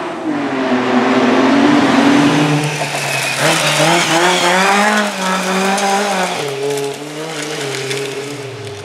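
Rally car engine under hard throttle, its pitch climbing and dropping several times as it goes through the gears, with a drop near the end.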